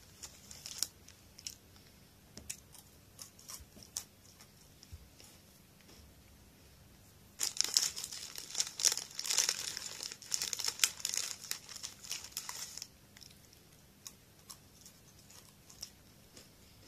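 A snack wrapper being handled and crinkled in the hands: scattered light rustles, then about seven seconds in roughly five seconds of loud, dense crinkling, then light rustles again.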